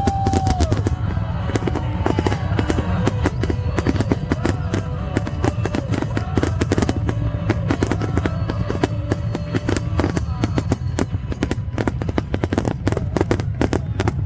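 A dense, rapid barrage of firework bangs and crackles, many per second, over a steady low rumble, with the show's music playing along.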